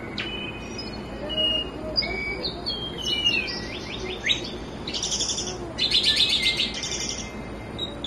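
A caged songbird singing a varied song of whistled notes and sliding calls, which turns into fast, loud trills about five seconds in.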